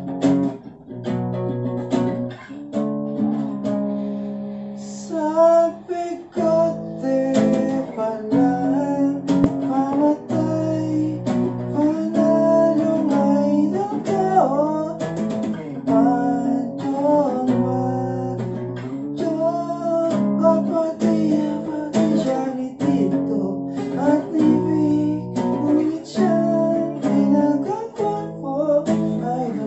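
Acoustic guitar strummed in chords, with a voice singing a song over it from about five seconds in.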